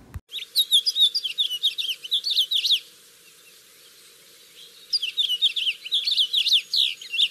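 Recorded song of a finch: a rapid, warbling string of high chirps and trills. It comes in two phrases of about two to three seconds each, separated by a pause of about two seconds.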